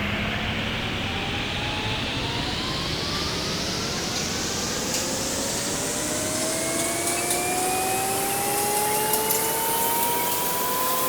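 A whine over a rushing hiss, its pitch rising slowly and evenly throughout, like a motor or turbine spinning up.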